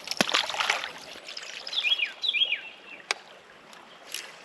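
A bird calls twice with short notes sliding downward, after a second of light splashing and clatter of water and tackle around a small boat. A single sharp click comes near the end.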